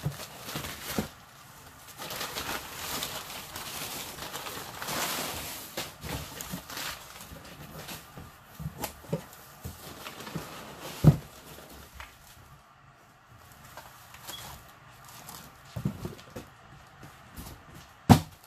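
Cardboard box being opened and unpacked: flaps and packing paper rustling and scraping, then scattered handling clicks and knocks, the loudest about eleven seconds in and another near the end, as a paper-wrapped wooden fingerboard ramp piece is lifted out.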